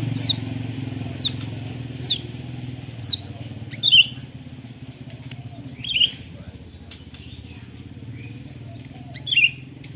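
White-rumped shama calling: four quick falling whistles about a second apart, then a few short chirps spaced out. An engine hum fades in the background.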